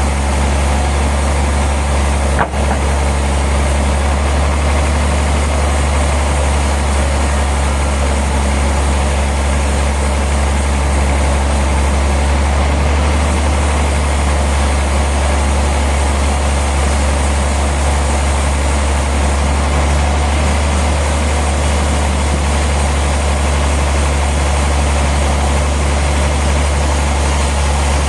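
A heavy engine running at a steady speed, a constant low drone with no changes in load. There is one brief dropout about two and a half seconds in.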